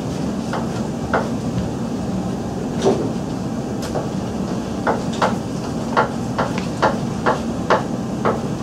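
Chef's knife chopping tomatoes on a cutting board: a few scattered knocks of the blade on the board, then about halfway through a steady run of chops, about two a second, over a steady low room hum.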